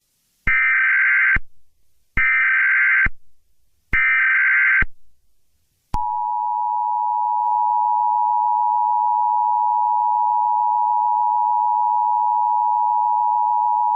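Emergency Alert System broadcast tones: three short buzzing SAME header data bursts, then the steady two-tone EAS attention signal, held for about eight seconds.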